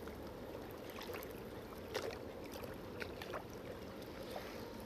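Steady low wash of water and wind, with a few faint clicks about two and three seconds in.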